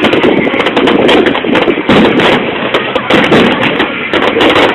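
A fireworks display going off in rapid succession, with dense bangs and crackles, alongside crowd voices.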